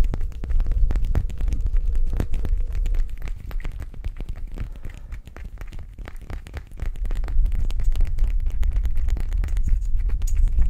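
Fingers tapping and rubbing a small glass bottle with a black cap held right at the microphone: many quick light clicks over a deep handling rumble. The rumble eases in the middle and builds again about seven seconds in.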